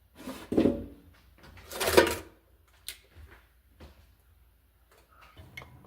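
Kitchen handling sounds while dinner is being warmed up: two loud clattering knocks about half a second and two seconds in, then a few light clicks. A low steady hum starts near the end.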